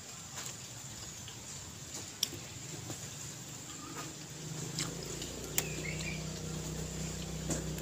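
Eating sounds of a meal of raw leafy vegetables taken by hand: soft chewing with scattered small clicks and ticks. About five seconds in a low engine hum starts and stays, and a bird chirps once briefly.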